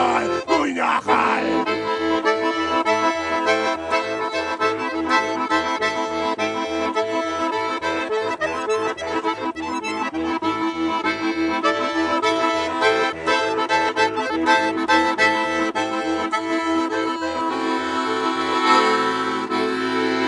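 Bayan (Russian button accordion) playing the instrumental ending of a punk song, with a steady alternating bass-and-chord rhythm under the right-hand melody. Near the end it settles on a long held chord.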